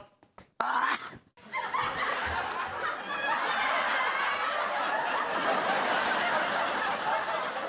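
Sitcom laugh track: an audience laughing, swelling up about a second and a half in and running on steadily, after a short sharp sound just over half a second in.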